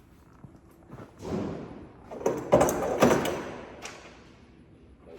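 A scraping, sliding rush followed by a few sharp, loud knocks and clatter of hard objects, with a short ringing tail.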